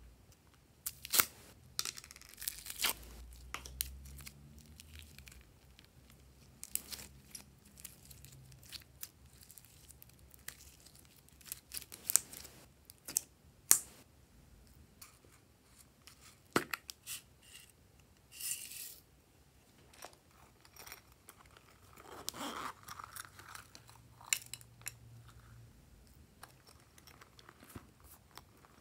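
Plastic slime tubs being handled and opened: scattered sharp clicks and taps of the plastic, with a few short rustling stretches as slime is pulled from a tub and dropped into a glass tray.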